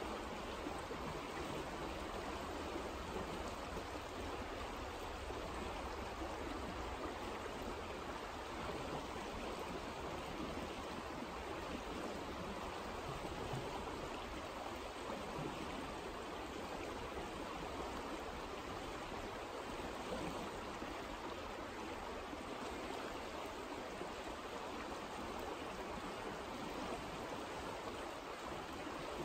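Creek current running over shallow riffles: a steady, even rush of water.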